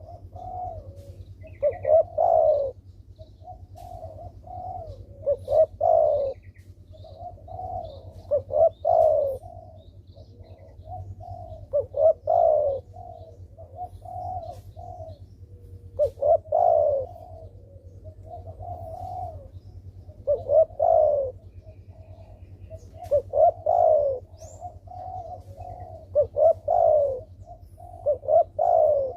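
Spotted dove (derkuku) cooing over and over in a steady, lively run, with a full phrase every three to four seconds. A low steady hum sits underneath.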